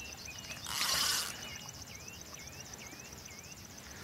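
A hooked grass carp splashing at the surface about a second in, a short rush of water that is the loudest sound. Under it, a steady high insect trill, and a bird repeats a short rising call four times.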